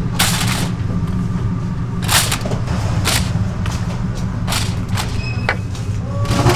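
Cleaver chopping on a wooden block: about six heavy thuds, spaced irregularly about a second apart, over a steady low hum.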